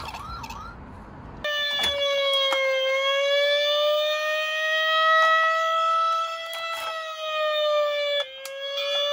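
Electronic siren of a toy ladder fire truck: a slow wail that starts suddenly about a second and a half in, rising and falling gently in pitch, then breaking off and starting again near the end. A few small clicks from the plastic toy being handled.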